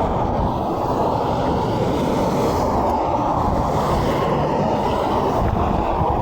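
Steady rush of highway traffic with wind on the microphone, a little brighter in the middle; no horn sounds.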